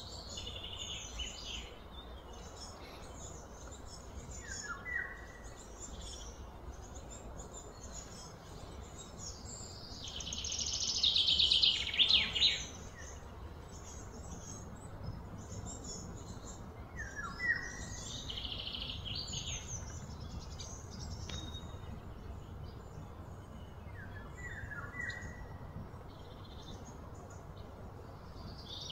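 Outdoor birdsong: several birds chirping and calling over a low steady background hum. A short call that drops in pitch repeats every several seconds. A louder run of rapid notes comes a little before the middle.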